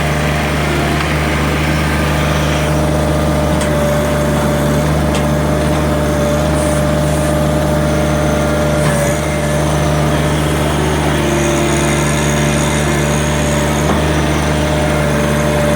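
John Deere 1-series compact tractor's diesel engine running steadily under load as it works the backhoe, with a steady whine over the low drone.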